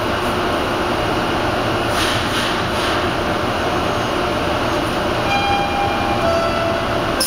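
Steady hum and hiss of a Bombardier T1 subway car standing at a platform with its doors open, with a sharp click near the end.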